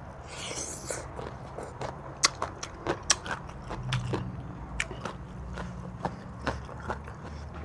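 A person biting and chewing food close to the microphone: a run of sharp, crisp clicks and crunches spread irregularly, with a short rustle about half a second in.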